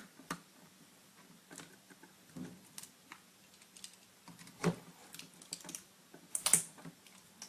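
Scattered light clicks and taps of a mini screwdriver and small screws on a netbook's LCD frame as a screen screw is taken out, the two loudest about four and a half and six and a half seconds in.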